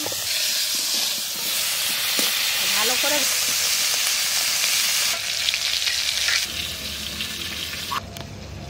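Pieces of dried tuna sizzling steadily as they fry in hot mustard oil in a kadai, with a spatula stirring and turning them.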